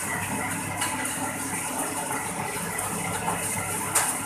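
Vertical grain dryer running steadily: an even mechanical noise with a low hum, and a short click about a second in and another near the end.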